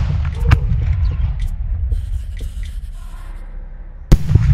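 Fireworks going off at night. A sharp bang comes about half a second in, and a loud bang near the end as a shell bursts. A low rumble follows each bang.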